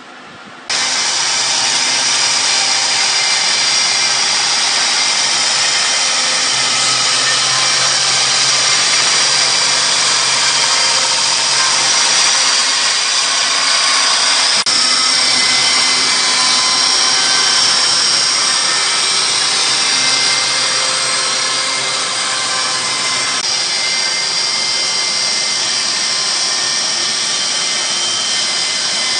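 The 10 hp electric chainsaw of a Snik chainsaw mill ripping a pine log lengthwise, fed along the log automatically. A loud, steady mechanical whine that comes in suddenly less than a second in and holds without a break.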